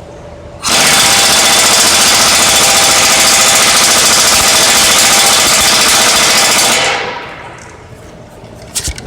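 Craftsman Professional 3/4-inch pneumatic impact wrench hammering hard on an already-tightened cutting-edge bolt nut for about six seconds, then trailing off. The nut turns only about an eighth of a turn further.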